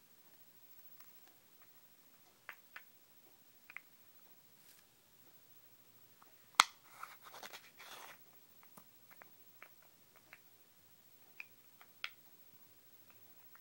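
Hand-held herb grinder being worked over dry cannabis: scattered small clicks and crunches, then one sharp loud click about six and a half seconds in, followed by a second or so of crunchy scraping and rattling before more scattered clicks.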